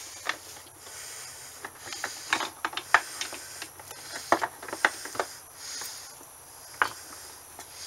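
Metal gears and shaft of a Peerless transaxle being turned and meshed by hand in the oily open case, giving irregular light clicks and clinks.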